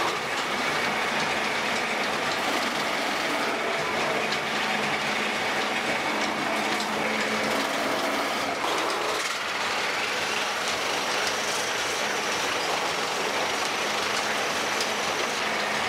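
Metal-spinning lathes and their belt-and-pulley drives running as aluminium pots are shaped: a steady, dense mechanical rattle and clatter with a faint high whine. The mix shifts about nine seconds in.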